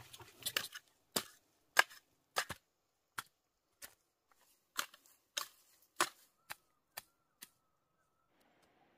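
Hand hoe chopping into loose soil: a run of about a dozen sharp strikes, roughly one every half second to second, which stop about a second and a half before the end.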